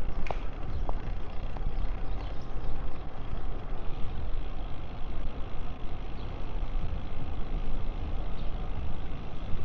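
Wind buffeting the microphone of a bicycle-mounted camera while riding, a steady low rumbling noise, with a few faint ticks in the first two seconds.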